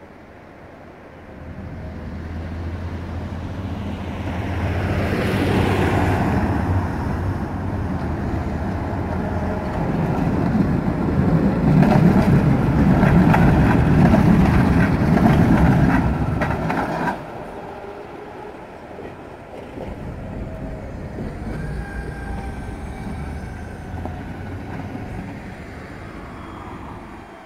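Articulated tram passing close on street track, its wheels clattering over the rails and junctions with rapid clicking, growing louder and then cutting off suddenly about two-thirds of the way in. Quieter street traffic follows.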